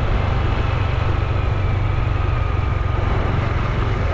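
Honda Super Cub C125's 125 cc single-cylinder four-stroke engine running steadily while riding, a constant low rumble mixed with road and wind noise.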